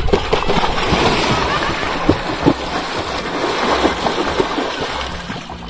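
A person jumping feet-first into a lake: a big splash, then churning, sloshing water that slowly settles and grows quieter.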